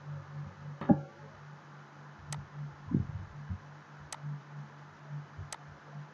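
A computer mouse clicking three times, sharp single clicks spaced a second or more apart, over a low steady hum. Two soft thumps come before the clicks, about one and three seconds in.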